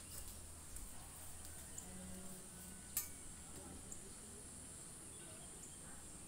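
Quiet ambience with a steady high-pitched hiss and faint distant voices, broken by one sharp click about three seconds in.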